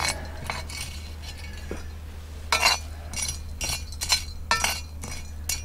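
Small cups or dishes clinking against a metal bowl: a few light clinks at first, then a quicker run of about two a second in the second half, over a low steady hum.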